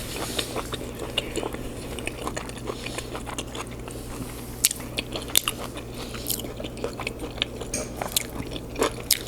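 Close-miked chewing of a mouthful of food, with wet mouth smacking: irregular sharp clicks, several a second, some louder than the rest.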